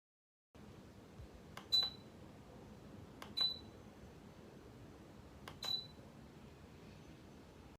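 Three short, high electronic beeps about two seconds apart, each just after a faint click: a DC-motor ceiling fan's receiver beeping to acknowledge remote-control button presses.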